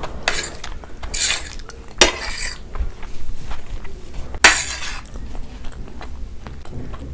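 Metal fork scraping and clinking against a plate while gathering sauce-coated noodles, in several short scrapes with two sharp clinks, about two and four and a half seconds in, the second the loudest.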